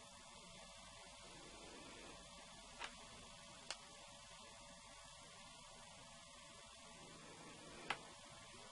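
Near silence with a faint steady hum, broken by three small sharp clicks, about three seconds in, a second later, and a louder one near the end, from fingers handling and turning over an Apple Watch.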